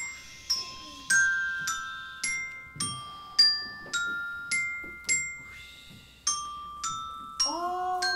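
A glockenspiel plays a slow melody of single struck notes at an even pace, just under two a second, each left ringing. Near the end a lower tone slides up and holds beneath the bells.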